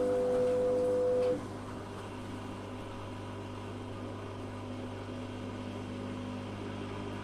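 Zanussi FA623 washing machine running. A loud pitched electrical hum cuts off suddenly about a second in, leaving a quieter steady low hum.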